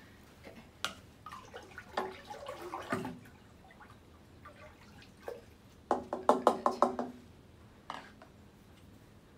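Spoon stirring water in a glass aquarium, with scattered knocks and clinks against the glass. About two-thirds of the way through comes a quick run of about seven loud, ringing taps, a spoon rapped against the glass tank.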